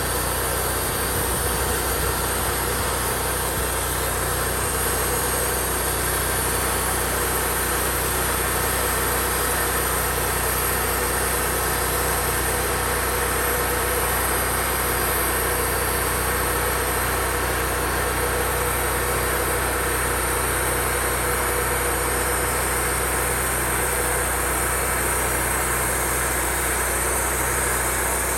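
Sawmill engine running steadily while the mill saws a pine log into boards.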